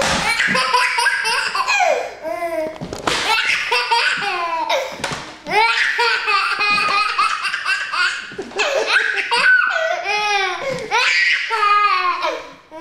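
A toddler laughing, in a string of laughs with short breaks between them.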